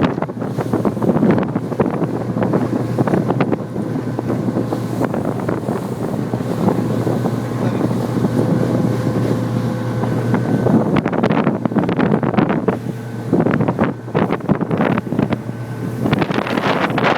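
Motorboat engine running at a steady pitch, under heavy wind buffeting on the microphone. The engine tone drops out for a couple of seconds after about ten seconds, then returns.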